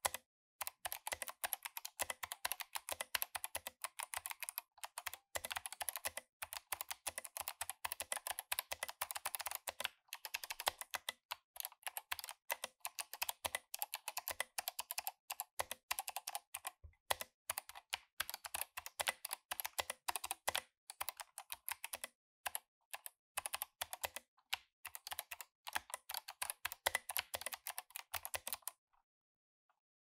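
Fast continuous typing on a K-Type mechanical keyboard with clicky Kailh Box Navy switches and SA Pulse keycaps. It is a rapid stream of sharp key clicks with a few brief pauses, and it stops about a second before the end.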